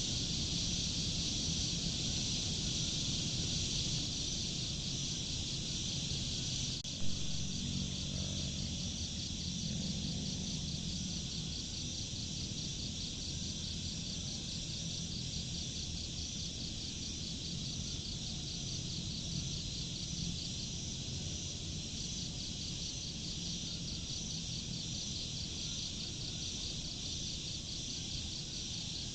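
Night-time insect chorus, crickets chirring steadily in a high, fast-pulsing drone over a low background rumble; a single sharp click about seven seconds in.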